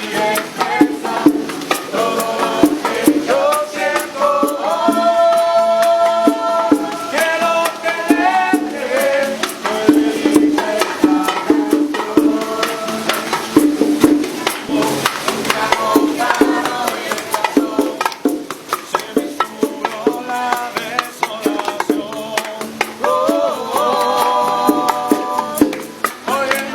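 Music with a quick, steady shaken-percussion rhythm and a melody over it.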